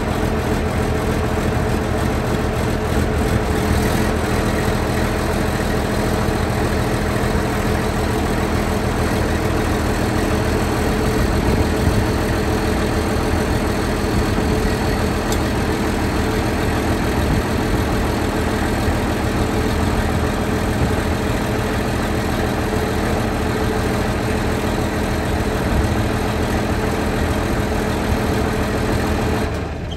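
Large diesel engine idling steadily, with an even low rumble and a constant hum.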